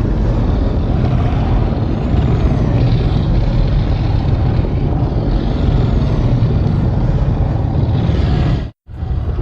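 Custom kaiju sound effect: a loud, dense, low rumbling noise. It cuts out abruptly for a moment near the end, then resumes.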